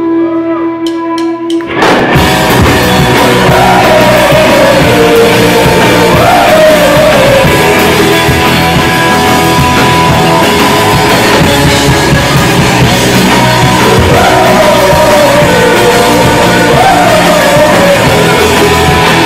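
Rock band playing live with electric guitars and a drum kit, loud. A few quick sharp clicks come first, then the full band comes in about two seconds in, with a sung melody over it.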